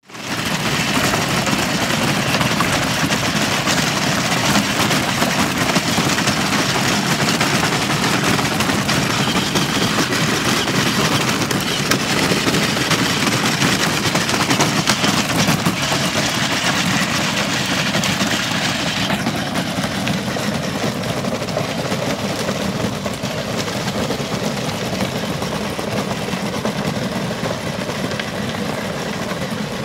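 Battery-powered kids' ride-on motorcycle driving over gravel: its hard plastic wheels grind and rattle steadily on the stones as the drive motor runs. The high hiss eases off about two-thirds of the way through.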